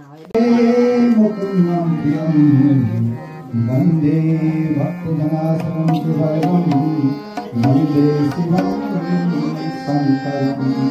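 Music begins abruptly: a melody of held notes moving in steps over regular hand-drum strokes.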